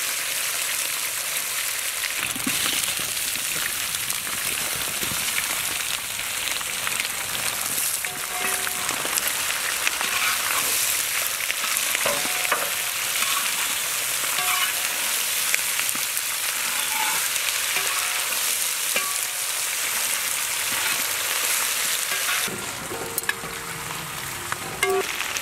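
Goat meat pieces and potatoes sizzling and frying in a wide metal pan, stirred with a spatula that scrapes across the pan. The sizzle eases near the end.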